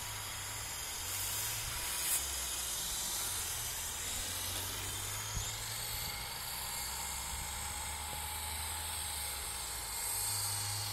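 Large electric RC helicopter (QS8006) flying at a distance, its rotor and motor making a faint steady whir over a steady hiss.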